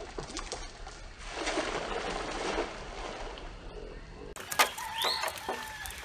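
A cast net splashing down onto pond water in a broad splashing hiss that swells and fades. After a cut there is a sharp knock, then birds calling.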